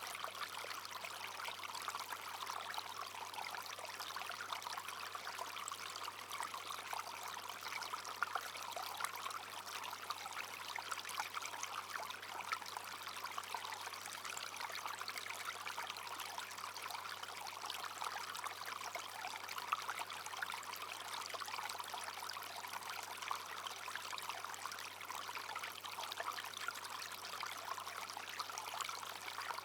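Small stream babbling and trickling steadily over stones, with a continuous splashing burble.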